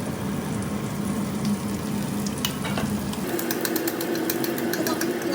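Batter-coated catla fish pieces frying in hot oil, sizzling and crackling steadily, with a change in the sound's texture about three seconds in.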